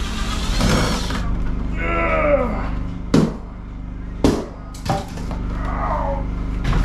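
A heavy solid cedar door knocking and thudding several times as it is lifted and carried, over background music.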